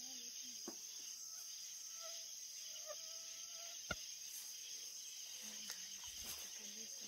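A steady, high-pitched insect chorus, crickets, in quiet countryside, with one sharp click about four seconds in.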